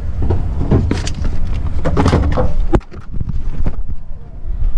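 Handling noise from an action camera being picked up and moved about: rubbing and rustling with irregular knocks, the sharpest around the middle.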